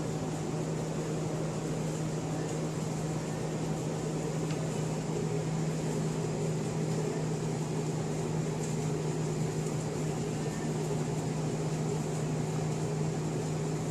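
A steady mechanical hum with a low droning tone over an even noisy hiss, unchanging throughout, like a running appliance or fan.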